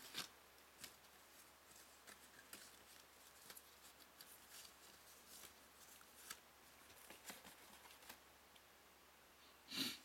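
Near silence with faint, scattered light clicks and rustles of paper or card stock being handled, and one short, louder rustle near the end.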